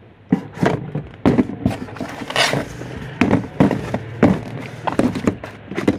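Plastic lotion bottles and cosmetic tins knocking against each other and the cardboard box as a hand shifts them around, a string of irregular sharp knocks with a brief scraping rustle about two and a half seconds in.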